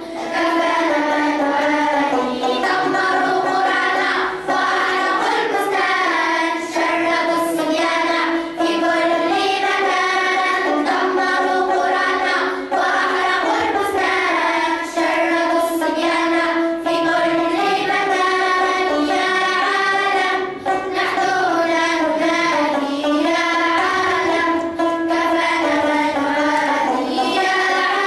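A group of children singing an Arabic song together, with a banjo strummed along as accompaniment.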